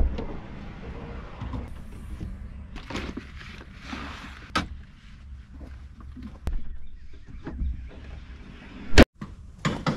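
Vehicle's rear swing gate opened, with rustling and scattered knocks as gear is handled in the cargo area. The gate is then slammed shut about nine seconds in, a single loud bang that is the loudest sound.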